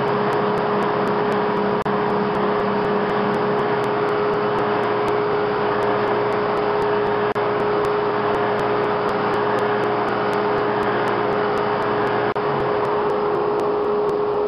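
Shop-built drum thickness sander driven by a ShopSmith, running steadily with its dust collector, a constant hum over a broad rushing noise. A board is fed through the drum in the first few seconds.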